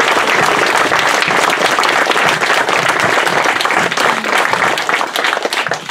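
Audience applauding, a steady round of clapping that thins out near the end.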